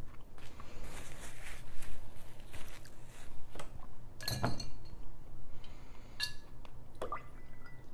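Tableware clinking: a few sharp, light knocks with a brief ring, over soft rustling from the table.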